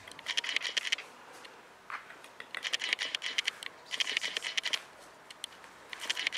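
Four bursts of rapid scratchy clicking, each about a second long, as a Welsh Terrier puppy scrabbles after and tugs at a furry toy dragged on a string across paving stones.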